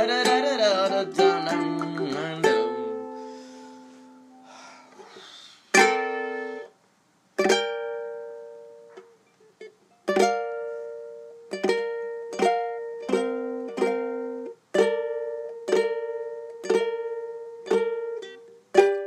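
Solo ukulele: strummed chords for the first couple of seconds, left to ring out, then a halting riff of single plucked notes and short chords, each ringing and decaying, with brief pauses between them.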